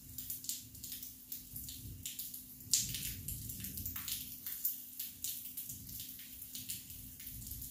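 Raindrops and drips tapping irregularly on a nearby surface: sharp little ticks several times a second, with a louder one about three seconds in. A low rumble and a faint steady hum sit underneath.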